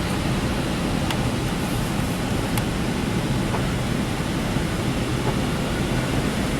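Steady rushing air from a minivan's heater and ventilation blower fan running, with a few faint clicks.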